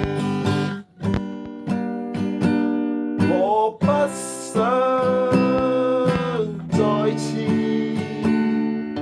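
Music: an acoustic guitar strummed in a steady rhythm. Near the middle a melody note slides up, is held for about two seconds, then drops away.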